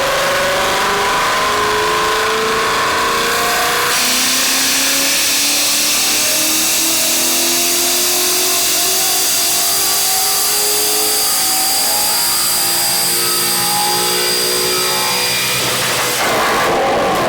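2019 Mustang Bullitt's 5.0 L V8 with long-tube headers at full throttle on a chassis dyno, revs climbing steadily in a long pull. The pitch drops once about four seconds in before climbing again, and near the end the throttle closes and the revs fall away.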